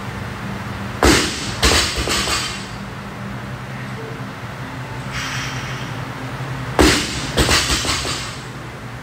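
Barbell loaded with bumper plates dropped onto the gym floor twice, first from overhead about a second in and again near seven seconds. Each drop lands with a loud slam, bounces once and rattles briefly, over a steady low hum.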